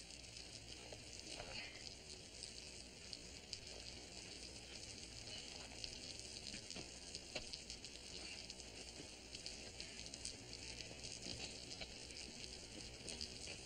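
Steady hiss with many faint scattered crackles and ticks, the surface noise of an old, worn soundtrack; no distinct sound event stands out.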